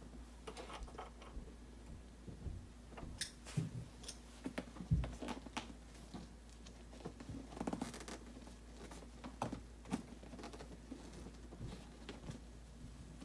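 Hands working on the back of a Volkswagen Beetle front seat: irregular clicks, scrapes and rustles as the vinyl cover, metal frame and springs are handled, with a dull knock about five seconds in.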